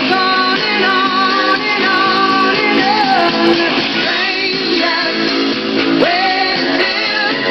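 Music with guitar and a singing voice.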